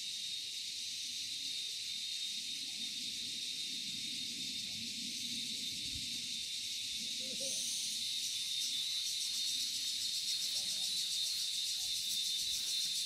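A steady, shrill chorus of insects, high-pitched, growing a little louder and taking on a fast pulsing about halfway through.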